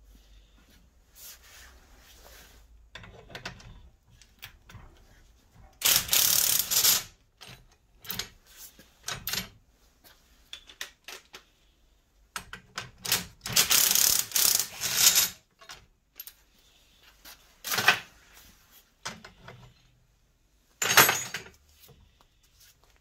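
Rapid metallic rattling and clatter from tools at work on a car's front suspension strut and coil spring held in a bench vice. It comes in loud bursts: about a second long some six seconds in, a longer broken spell around the middle, and two short ones near the end.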